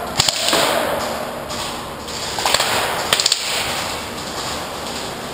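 Airsoft guns firing three short volleys of a few sharp snapping shots, each followed by echo in a large indoor hall.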